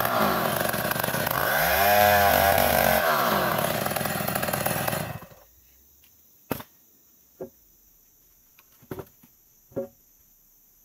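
Two-stroke chainsaw ripping lengthwise through an ironwood (ulin) beam, its engine pitch rising and falling once about two seconds in. About five seconds in the engine stops suddenly, followed by a few short, sharp knocks of the cut timber being handled.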